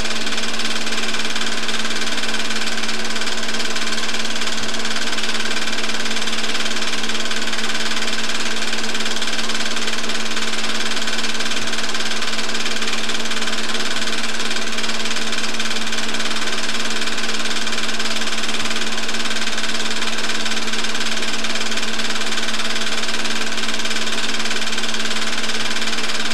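Film projector running during a home-movie transfer: a steady mechanical whir with a constant low hum.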